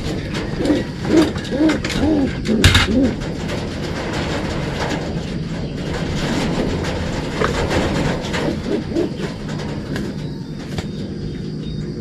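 Racing pigeons cooing: a run of repeated rising-and-falling coos in the first three seconds, then fainter coos around the middle. A sharp clatter comes about two and a half seconds in.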